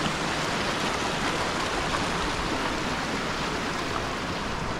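Creek water rushing past a footbridge, a steady, even wash of noise.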